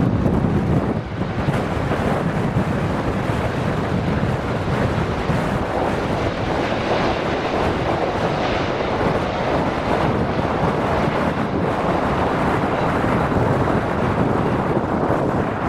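Strong gusting wind buffeting the microphone, a steady rushing roar. Beneath it runs the engine noise of a Boeing 777-300ER jet airliner rolling along the runway.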